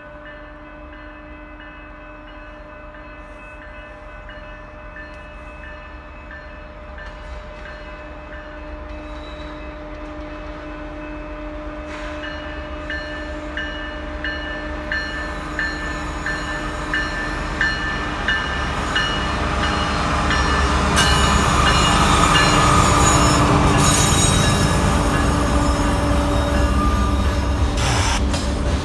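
Canadian Pacific diesel freight train approaching and passing: the locomotives' engines grow steadily louder to a peak about three quarters of the way in as they go by, then the tank cars rumble past.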